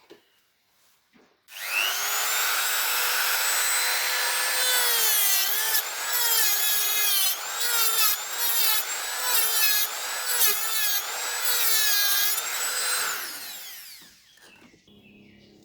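A small high-speed electric power tool starts up and settles to a steady whine. After a few seconds its pitch dips and recovers over and over as it is loaded against the work, then it switches off and winds down near the end.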